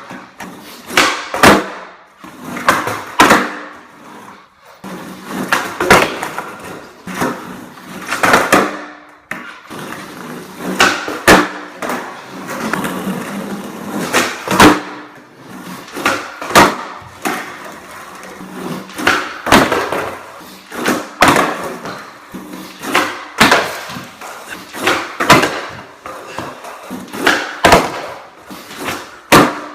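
Skateboard on a hard indoor floor: wheels rolling, broken by repeated sharp clacks and slaps of the board being popped and landing on flip-trick attempts, about one every one to two seconds.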